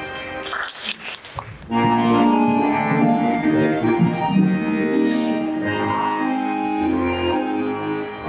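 A short noisy rustle, then about two seconds in a folk-dance tune starts, played in sustained chords for the barre exercise.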